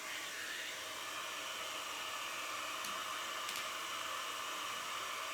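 Woodworking power tool running steadily with an even, airy whirring noise that cuts in abruptly.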